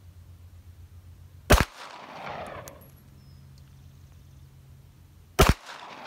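Two single shots from a 9mm Benelli MP3S pistol, about four seconds apart, each followed by about a second of echo.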